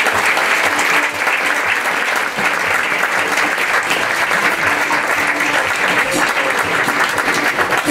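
Audience applauding steadily: dense, sustained clapping from a theatre crowd at the end of a performance.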